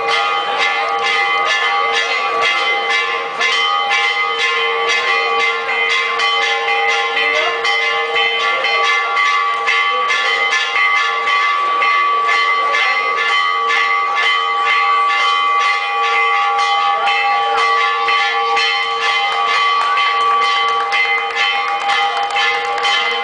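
Church bells ringing in a rapid peal, struck in quick succession so that their tones ring on without a break.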